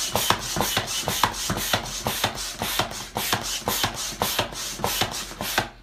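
Hand air pump worked rapidly up and down, each stroke a quick rasping whoosh of air, several a second. The pump is not connected to anything, so the air just blows out.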